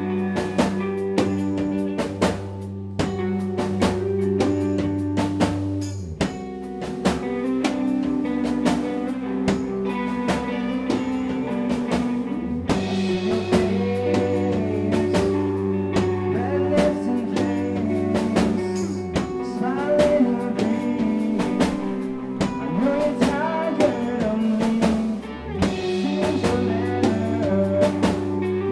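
Live band playing an instrumental stretch of a blues-rock song: drum kit keeping a steady beat under guitar and sustained low notes.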